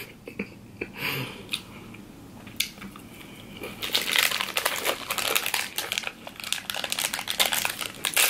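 Plastic wrapper of a Welch's fruit snacks pouch crinkling as it is handled and worked open, starting about four seconds in and running dense and crackly. Before that, soft mouth sounds with a few small clicks while a bite of cracker and cheese is chewed.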